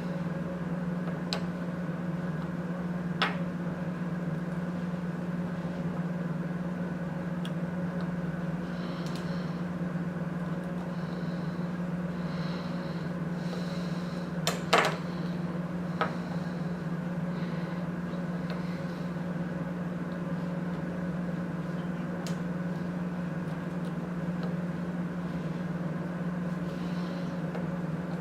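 A steady low electrical hum runs throughout, with a few small sharp clicks and knocks from parts and a screwdriver being handled while a limit switch is screwed onto its mounting plate. The loudest knock comes about halfway through.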